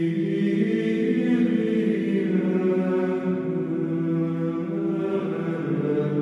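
Slow sung chant with long-held notes over a sustained low drone.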